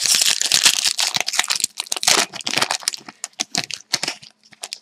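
Foil trading-card pack wrapper crinkling as it is handled. A dense crackle for the first few seconds thins to scattered light clicks near the end.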